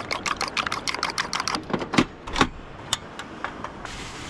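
A fork beating eggs in a ceramic bowl: quick clinks of metal on the bowl, about seven a second, then a few slower, louder knocks. Near the end, panko breadcrumbs poured from a bag onto a plate give a soft hiss.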